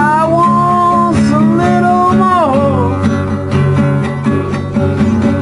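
Acoustic guitar strummed under a man's long held sung note, which slides down and fades about two and a half seconds in; the guitar carries on after.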